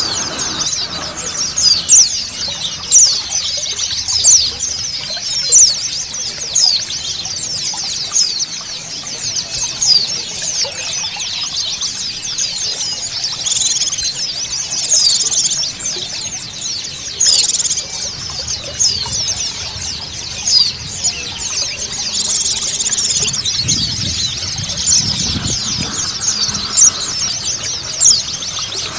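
A group of white-eyes (pleci) twittering and chirping rapidly, many short high calls overlapping, over the steady rush of flowing water.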